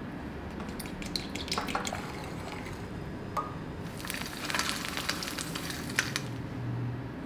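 A few light clicks and taps, then an egg sizzling as it fries in oil in a nonstick pan for about two seconds past the middle.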